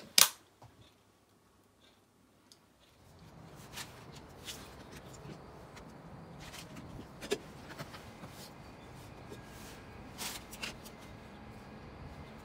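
A sharp click just after the start, then steady outdoor background noise with scattered light clicks and knocks of cooking things being handled: a cooking-oil bottle over a frying pan on a portable electric hotplate, and a wooden spatula on a plate of chopped onion.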